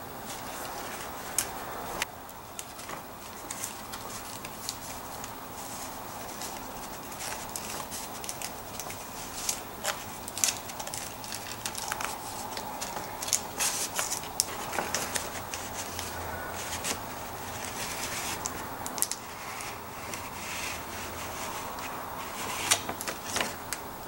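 Paper rustling and crinkling in irregular crackles and sharp clicks as a large manila mailing envelope is handled and opened and a painted card is pulled out of it.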